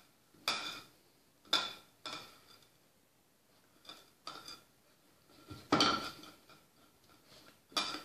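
A hairbrush clattering and knocking on a tiled floor as a puppy paws at it and picks it up in its mouth: a string of separate sharp knocks, the loudest about six seconds in.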